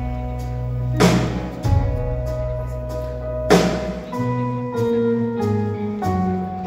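Live rock band playing an instrumental intro: guitars, bass and keys holding chords that change around the middle, with two cymbal crashes, one about a second in and one about halfway through.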